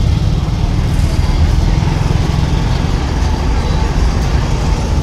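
Steady low engine rumble and road noise inside a moving MSRTC state transport bus as it runs slowly in traffic.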